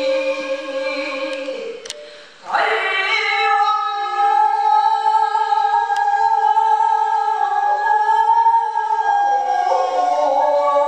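A woman chanting shigin, Japanese recited poetry, into a microphone: long held notes that step slowly down in pitch, with a short pause for breath about two seconds in.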